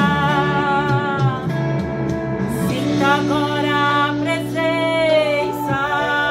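A woman singing a Portuguese-language gospel worship song, holding long sustained notes.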